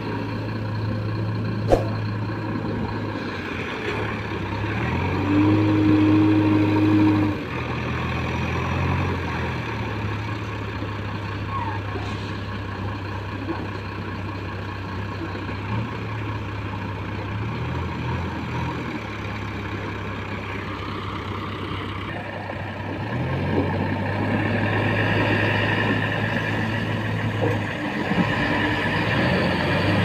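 Heavy diesel engines of a Bharat Benz tipper truck and a JCB backhoe loader running, the engine note rising and falling several times as the machines work, with a sharp knock about two seconds in.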